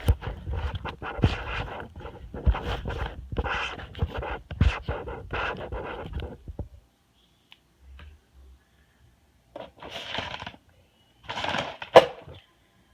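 Stiff plastic blister packaging being handled, crinkling and scraping in dense bursts with a few knocks for about seven seconds. Then comes a pause, two shorter rustles and a sharp click near the end.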